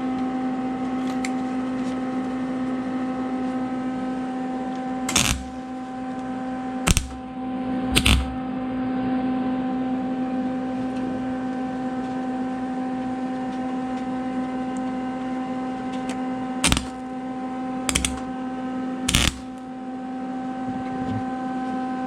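Short, sharp bursts of metalwork on a 1979 Camaro's rear quarter panel, six in all, in two groups of three, over a steady machine hum.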